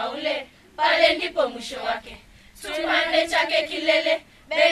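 Girls' choir singing in unison without accompaniment, in short phrases with brief pauses between them and a longer held note in the middle.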